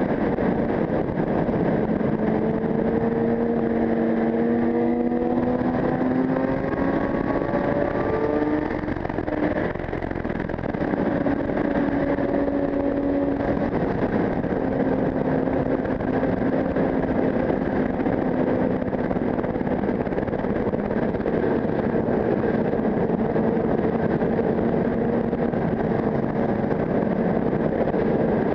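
Sport motorcycle engine under way, heard from a helmet camera with wind rushing over the microphone. The engine note climbs steadily over the first several seconds, dips briefly about ten seconds in, then holds a steadier note.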